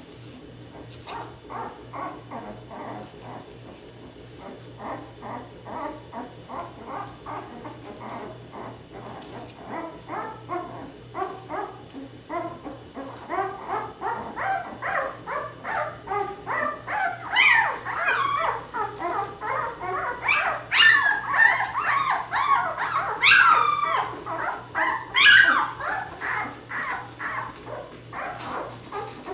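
Nine-day-old Labrador retriever puppies whimpering and squeaking, many short cries several a second. About halfway through they grow louder, with a few long, high yelps. These are the cries of newborn puppies nervous in an unfamiliar, larger space.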